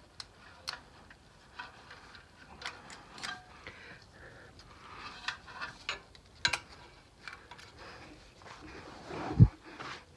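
Scattered light metallic clicks and taps of hand tools working the valve gear of a VW Beetle engine while valve clearances are checked, with one louder thump near the end.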